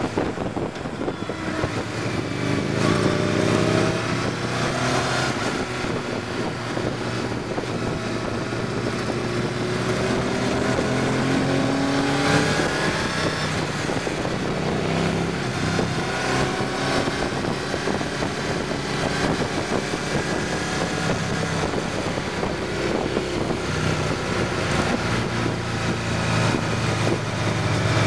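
Motorcycle engine running on the move, its pitch rising several times as the bike accelerates, over a steady rush of wind.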